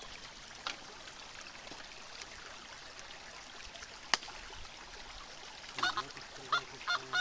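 Creek water running steadily, with a few sharp knocks; the loudest knock comes about four seconds in. Near the end comes a quick series of short, pitched calls.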